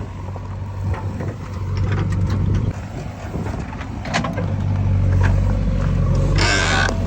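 Diesel engine of heavy earthmoving machinery running with a steady low hum, growing louder about four and a half seconds in, with a few knocks just before and a short hiss near the end.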